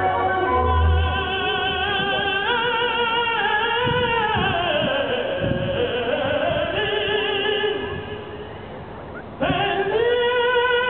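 Live symphony orchestra accompanying an operatic singer, notes held with wide vibrato. The music drops quieter about eight seconds in, then comes back in sharply with a long held note about a second and a half later.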